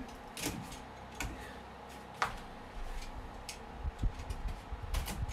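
Irregular light clicks and taps with low bumps: hands handling and opening a cardboard shipping box.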